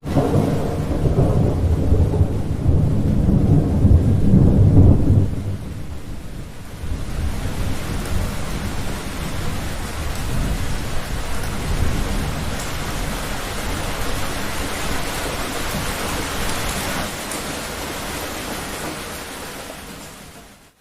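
Thunderstorm: a loud, low rumble of thunder for the first five seconds or so, then heavy, steady rain that fades out at the end.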